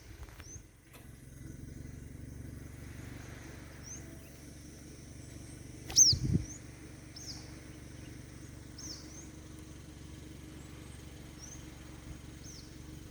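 A bird giving short, high chirps over and over, each a quick downward hook, spaced about a second apart. The loudest comes about six seconds in, together with a low thump. A steady low rumble runs underneath.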